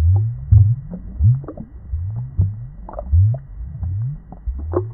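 Aquarium water bubbling: a run of low gurgles, each rising in pitch, about two a second, with small bubble pops above them.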